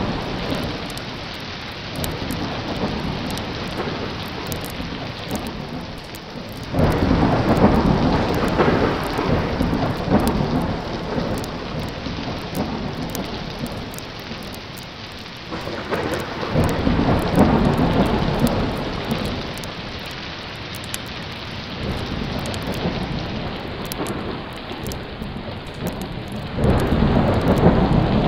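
Heavy rain falling steadily, with three long rolls of thunder: one breaking suddenly about seven seconds in, one swelling up around sixteen seconds, and one breaking suddenly near the end.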